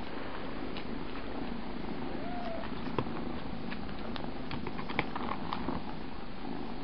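Cat purring steadily while a litter of kittens nurses, with a few soft suckling clicks and one brief faint squeak about two seconds in.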